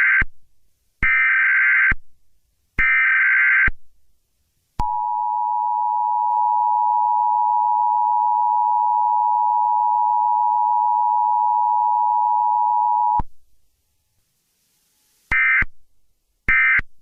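Emergency Alert System broadcast tones. First, buzzing SAME data-header bursts about a second long each. Then the steady two-tone attention signal, held for about eight seconds before it cuts off. Two shorter data bursts follow near the end.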